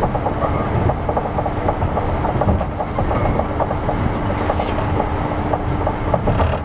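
Osaka New Tram 200 series rubber-tyred automated people mover running at speed, heard from inside the front car: a dense rumble with rapid rattling clicks and a steady motor hum. There are two brief hissing bursts, one just past the middle and one near the end.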